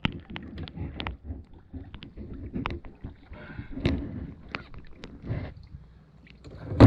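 Irregular knocks and clunks on a kayak, with low rumbling and water noise, ending in one loud thump near the end.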